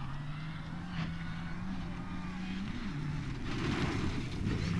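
Rally car engine heard from a distance, its note holding fairly steady, then growing louder toward the end as the car comes closer.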